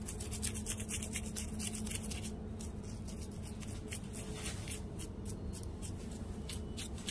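A knife scraping the roasted skin and scales off a fire-roasted dried fish held in the hand, in a rapid, irregular series of short scratchy strokes.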